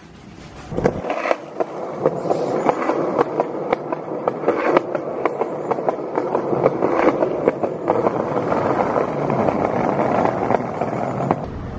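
Skateboard wheels rolling on a concrete sidewalk, a steady rolling rumble with frequent sharp clacks as the wheels cross the joints between the slabs. It rises in about the first second and cuts off suddenly shortly before the end.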